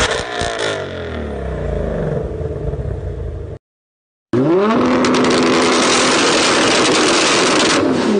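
Car engines revved through their exhausts in two separate clips with a short silent break between them. In the first, the engine note drops and fades as the revs fall. In the second, the revs climb quickly and are then held high and steady.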